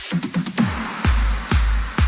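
Electronic dance music with a steady, heavy kick drum about twice a second. A brief break at the start carries a falling sweep, and the kick comes back about half a second in.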